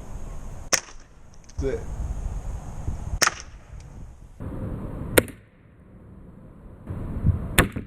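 Crosman .177 pellet air rifle shooting at a tub of sour cream: four sharp snaps spaced about two seconds apart.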